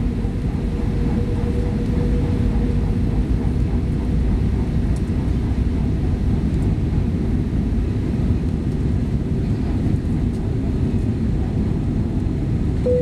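Steady cabin noise of an Airbus A318 on its landing approach, heard from a window seat by the wing: the rush of air over the airframe and the hum of its Pratt & Whitney PW6000 engines, with the flaps extended. A faint steady whine rises out of the noise about a second in, fades out by about three and a half seconds, and comes back at the very end.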